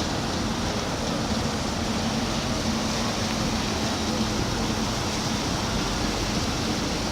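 A steady rushing of wind and water over a low, even engine hum from a vessel under way.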